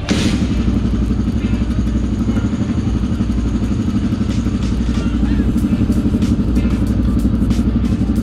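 Honda XR dirt bike's single-cylinder four-stroke engine idling steadily, left running after a wash to dry off the water and burn off fresh lubricant.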